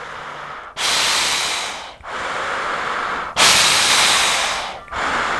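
A person breathing deeply in and out through a Woobi Plus silicone face mask, a hissing rush through its filters. The breaths come about every second and a half, louder and softer in turn, starting just under a second in.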